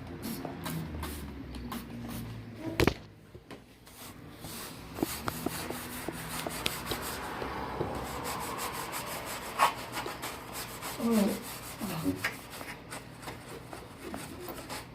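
Scrubbing and rubbing against a hard surface, with scattered small clicks and a sharp knock about three seconds in.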